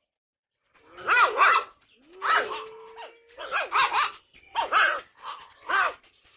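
Puppy yapping repeatedly in short, high calls, with one longer drawn-out call about two seconds in. It starts about a second in.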